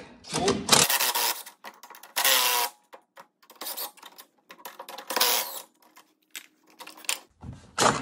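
10 mm socket ratchet working the snowmobile's track tensioner adjuster bolts to slacken the track, in several short bursts of ratcheting with scattered metal clicks between them.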